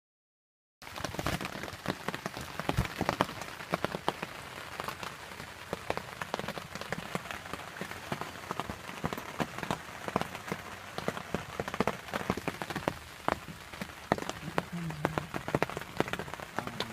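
Steady rain falling, with many sharp drop hits close to the microphone; it cuts in abruptly about a second in.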